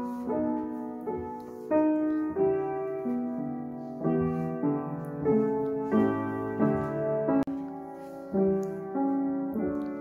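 Background piano music: slow, gentle melody with held notes and chords struck about once a second, with a brief drop-out about seven and a half seconds in.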